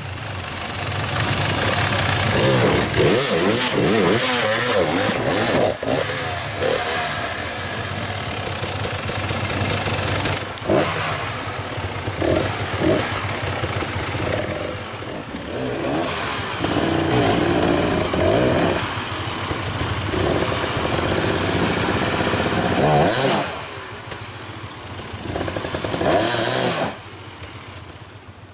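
Trail motorcycle engines revving and running, the pitch rising and falling repeatedly; the sound drops away near the end.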